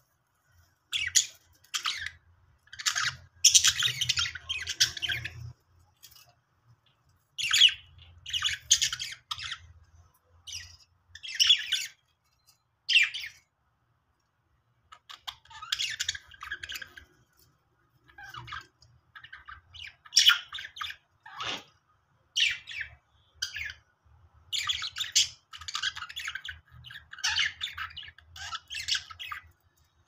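Several budgerigars singing and chattering in bursts of warbling a second or two long, broken by short silences, with one sharp downward-sliding call about two-thirds of the way through.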